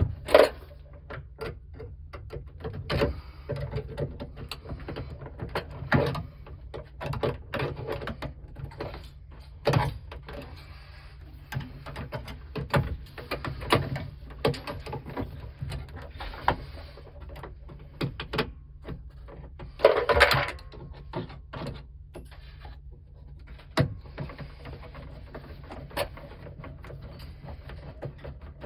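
Irregular clicks, knocks and clatter of hand tools and small metal parts being handled during the work, with a longer rattling clatter about twenty seconds in.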